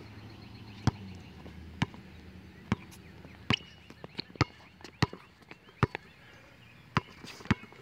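A basketball dribbled on a hard outdoor court: sharp single bounces about once a second, coming a little quicker around the middle.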